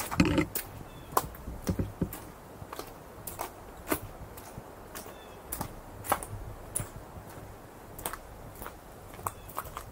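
Footsteps on a rocky, debris-strewn trail: irregular sharp clicks and crunches of boots on loose stone and dry litter, roughly one or two a second.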